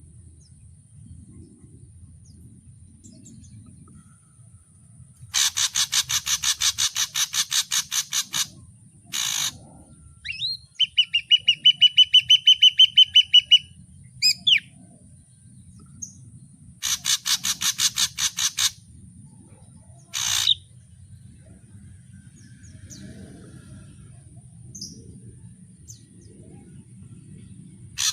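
Ashy drongo singing in separate bouts: twice a fast rattle of harsh rasping notes, about seven a second for two to three seconds, and between them a run of clear whistled notes at the same pace, with single harsh calls here and there and long pauses between.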